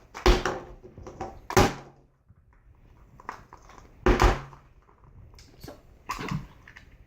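An Easter egg being handled and opened: a few separate sharp knocks and clicks, about four in all, with quiet between them.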